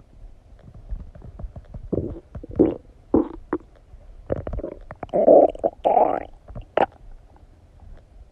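A human stomach gurgling and rumbling while digesting after a meal of donuts, in irregular bursts that grow louder and longer about halfway through.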